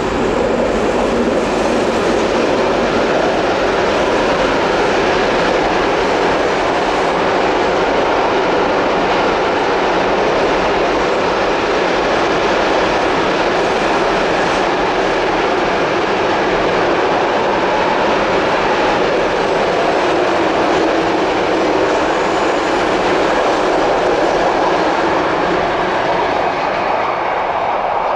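A long container freight train rolling past close by: a steady, loud rumble and clatter of wagon wheels on the rails, dropping away right at the end as the last wagon goes by.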